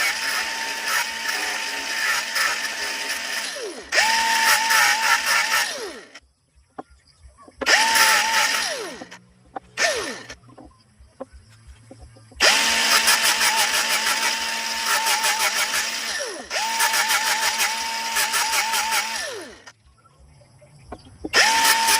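Electric power tool run in about five separate bursts. Each time the motor whines up to speed, runs steadily with a harsh, hissing grind, and winds down when released, with short pauses between runs.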